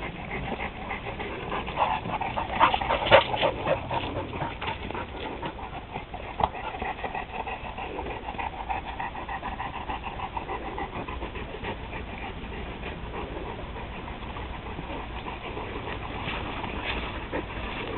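Dogs panting while they play, with a cluster of sharp clicks about two to four seconds in.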